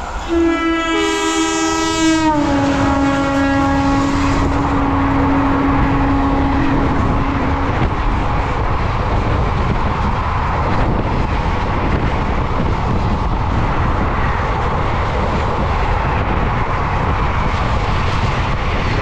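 Indian Railways train horn sounding for about seven seconds, dropping slightly in pitch about two seconds in and then fading out, over the steady noise of a moving train.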